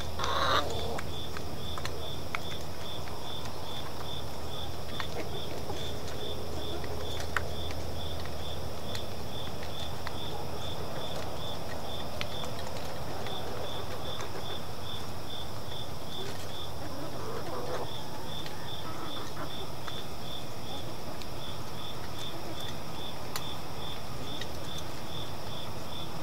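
Insects chirping in a steady rhythm, about two high chirps a second with two brief pauses, over a steady higher insect hum. A hen gives a short call right at the start.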